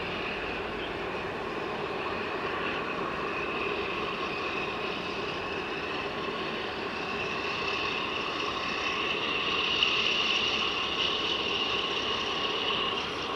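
Steady distant engine noise with a hissing high edge, slowly swelling to its loudest about ten seconds in, then easing off.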